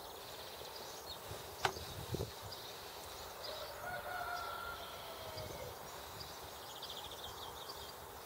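Outdoor ambience with small birds chirping and a rooster crowing at a distance near the middle. A sharp metal click comes about one and a half seconds in, with a softer one just after, as the steel parts of the hub's axle assembly are handled.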